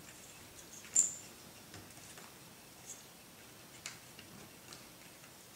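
A few light clicks and taps of small plastic and metal parts being handled on a model helicopter frame, with one sharper click about a second in.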